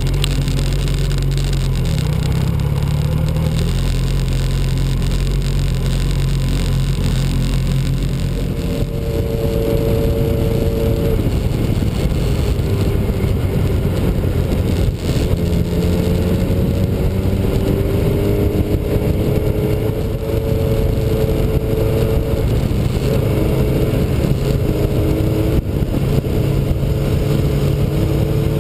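Motorcycle engine running at low road speed, then, about eight seconds in, riding at highway speed with wind rushing over the microphone. The engine note climbs slowly and drops back a couple of times as the throttle is worked.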